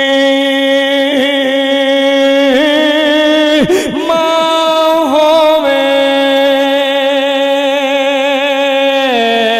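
A man singing a drawn-out devotional chant, holding each note for seconds at a time with wavering ornaments. He slides to a higher note about two and a half seconds in, holds a long note from about halfway, and drops in pitch near the end.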